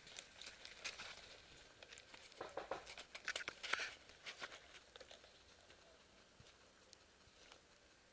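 Faint scattered rustling and crackling with short clicks, busiest in the middle few seconds, then dying away to near quiet.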